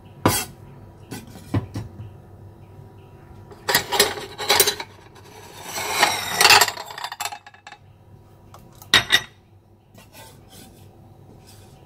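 Steel cleaver knocking and scraping on a thick wooden chopping block while minced garlic and shallots are handled. There are a few sharp knocks, a longer rasping scrape about six seconds in, and two quick knocks about nine seconds in.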